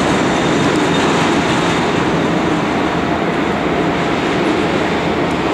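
Boeing 737-700's CFM56-7B turbofan engines at take-off thrust during the take-off roll: a loud, steady rushing noise that holds an even level throughout.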